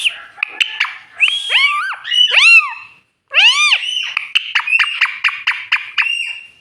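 Pet parrot calling: a series of arching whistled squawks, then a quick run of short clicking notes, about five or six a second, in the last two seconds.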